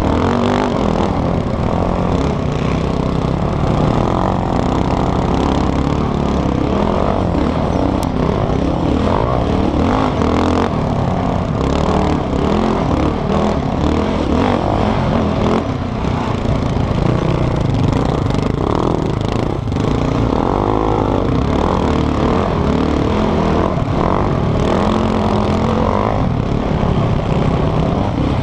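Sport quad (ATV) engine heard from the rider's own machine, running hard with the revs rising and falling as it is ridden along a sand track.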